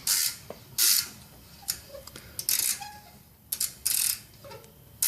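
Hand ratchet wrench clicking in short strokes, about one stroke a second, as it works on the rear brake caliper bolts of an Infiniti G35x.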